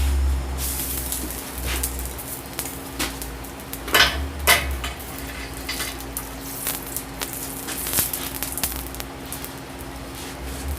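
Freshly forged iron hook sizzling as it is cooled, with sharp metallic clinks, the loudest about four seconds in.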